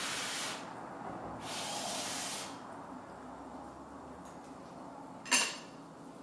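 Two puffs of breath blown out around a hot mouthful of food, then a single clink about five seconds in as a metal fork is set down on the plate.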